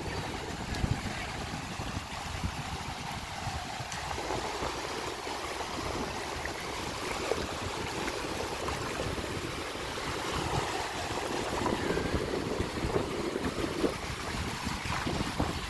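Small waves washing up and draining back over a sandy beach, with wind buffeting the microphone.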